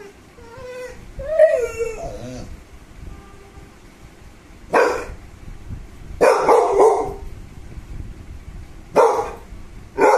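American bully dog whining, with high gliding whimpers over the first two seconds or so, then giving short barks at intervals: once about five seconds in, a quick run of them a second later, and twice more near the end.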